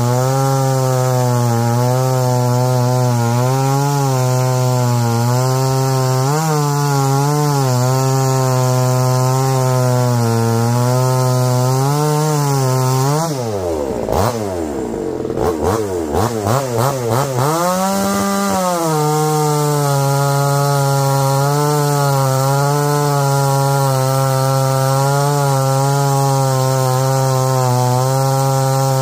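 Bigbore two-stroke chainsaw, fitted with a 48 mm piston and cylinder kit (about 61.5 cc), cutting through a large log under load, its pitch wavering as it bogs and recovers in the wood. About halfway through it comes out of the cut, drops in speed with a few throttle blips, then climbs back up and goes into the next cut under load.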